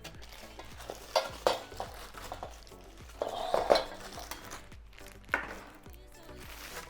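Knocks and clinks of baby swing parts being handled and set down: a few separate hits, a cluster of clatter about halfway through, and one more sharp knock near the end.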